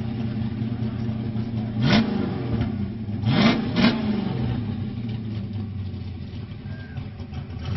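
Third-generation F-body coupe doing a burnout: the engine is held at high revs with the rear tyres spinning. It is blipped up sharply about two seconds in, then twice in quick succession around three and a half seconds in, then settles back to a steadier note.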